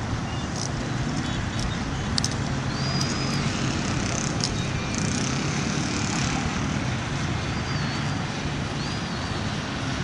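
Steady road traffic noise, a continuous low rumble, with a few faint short high-pitched sounds over it.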